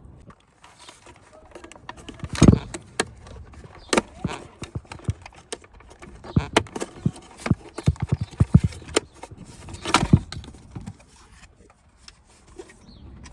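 Plastic interior trim panels and their clips being pried and handled: a run of irregular sharp clicks and knocks, the loudest about two and a half seconds in and again about ten seconds in.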